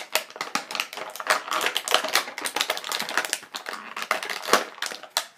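Rapid, irregular clicking and tapping of hands working at small hard objects, with one sharper knock about four and a half seconds in.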